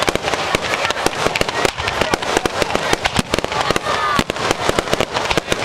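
Fireworks display: a dense, continuous volley of sharp crackling bangs and pops, many per second.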